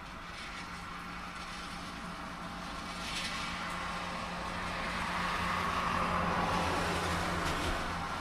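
A car passing on a rain-soaked road: its hiss builds to a peak about six seconds in and eases off near the end, over steady heavy rain.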